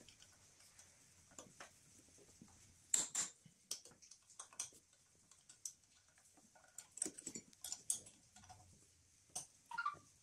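Irregular small clicks and taps of a hand tool and loose parts against metal and plastic in a car's engine bay, the sharpest pair about three seconds in, during removal of the EGR valve and its fittings.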